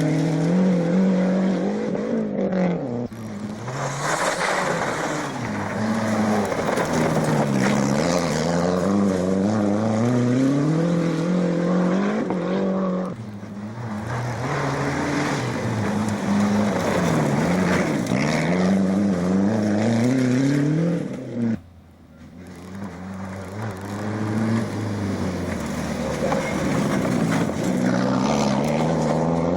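Rally car engines revving hard on a special stage, the pitch climbing and dropping over and over as they shift through the gears. One car's sound gives way abruptly to the next three times.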